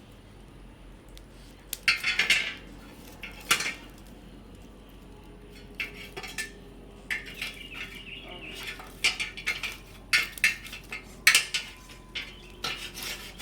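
Metal cookware and utensils clattering and clinking in irregular knocks, with the loudest clatters about two, three and a half and eleven seconds in.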